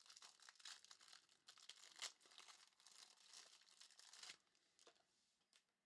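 Faint crinkling and tearing of a trading card pack's plastic wrapper as it is opened, with small crackles over about four seconds and then a few scattered ticks.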